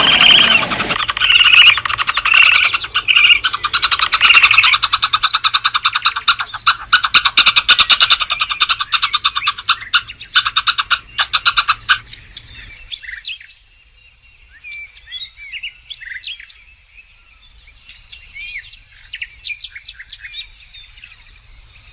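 Animal chattering: a loud, rapid train of clicking chirps for about the first twelve seconds. It cuts off abruptly and gives way to quieter, scattered high chirping calls.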